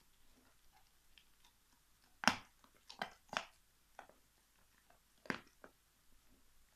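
Alaskan Malamute gnawing a big turkey bone: about half a dozen sharp crunches as its teeth bite down, the loudest about two seconds in.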